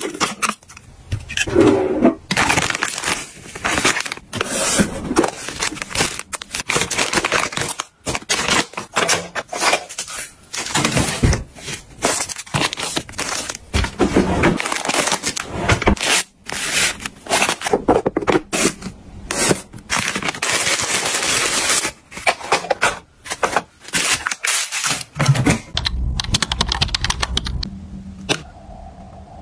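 Close-up handling sounds of household items in quick succession: dense clicks, taps, scrapes and crinkling, broken by many short pauses. Quieter near the end.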